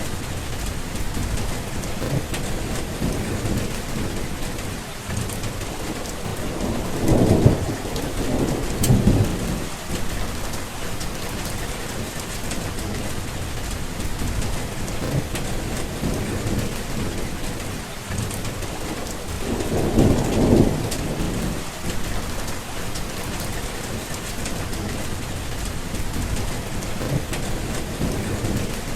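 Steady heavy rain falling, with thunder rumbling low twice: a rolling peal about a quarter of the way in and another about two-thirds through.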